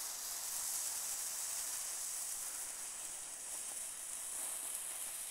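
Small red Bengal-flame ground fountain (Panda Sternensprüher) burning with a steady hiss and no crackling.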